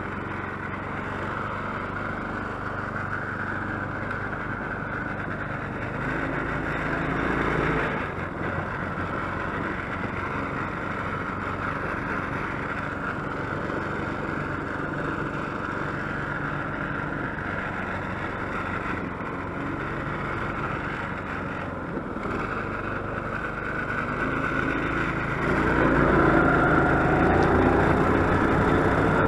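Small gas engine of a homemade tracked motor-dog running steadily while towing a sled through snow. It revs up briefly about six seconds in, then again near the end, where it climbs in pitch and stays louder.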